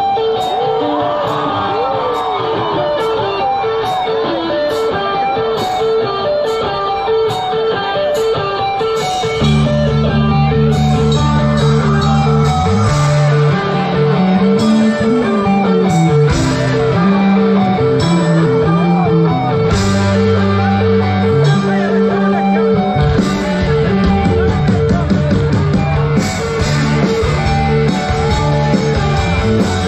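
Live rock band playing: an electric guitar repeats a steady riff over drums, and a bass line joins about a third of the way in.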